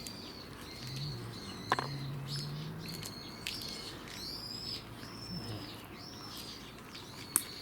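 A bird calling over and over, a series of short, arched high chirps about one a second. There is a faint low hum in the first few seconds and a couple of sharp clicks.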